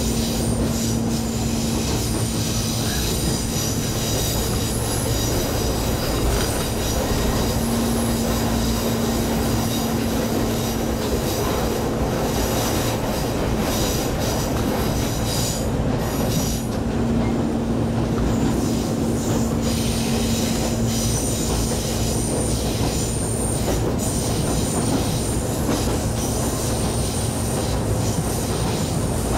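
Ichibata Electric Railway 5000 series electric train (ex-Keio 5000 series) running, heard from inside the carriage: steady wheel-on-rail noise with a constant hum underneath.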